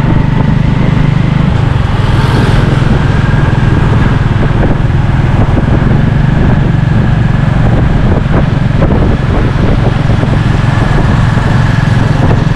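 Motorcycle-drawn tuk-tuk driving steadily along a road, its motorbike engine running with road noise, heard from the passenger carriage.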